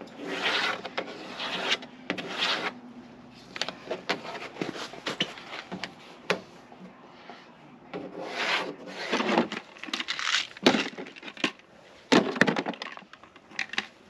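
Pencil scratching marks along a ruler on the painted lower side panel of a trailer, in a series of short scratchy strokes that come in two spells.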